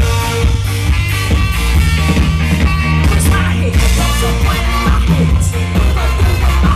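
Live band playing loud music: an instrumental passage with a driving beat and heavy bass.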